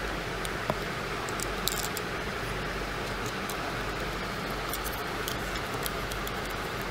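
A few small, scattered plastic clicks and taps as a spray bottle's piston and coil spring are handled and pushed into its plastic housing cylinder, over a steady background hiss.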